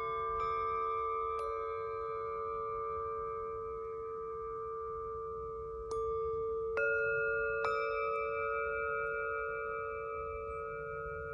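Tibetan singing bowls being struck one after another, about five strikes in all, with clusters of two near the start and three in the second half. Each strike leaves long, steady ringing tones of several pitches that overlap and slowly fade.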